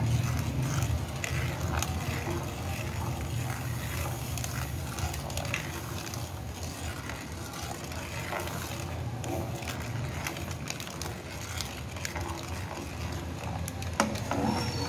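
Metal spoon stirring a jelly mixture in a non-stick pan, scraping and tapping against the pan in scattered light clicks, with one sharper knock near the end, over a steady low hum.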